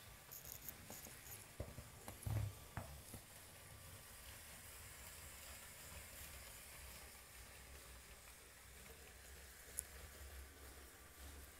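Faint low rumble of a Lego train rolling slowly on plastic track, with a few light knocks and clicks about two seconds in and a single click near the end.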